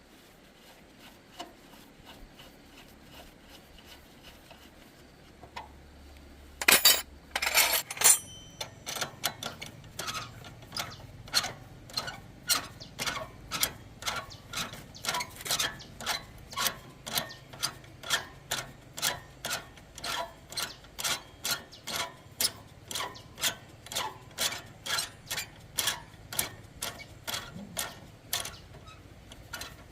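Metal hand-tool work: a short burst of loud metal clatter, then a steady run of sharp clicks about two a second.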